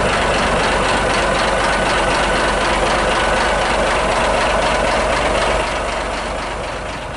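Komatsu WA420-1 wheel loader's diesel engine running steadily close by, with a faint steady whine over it; it grows quieter near the end.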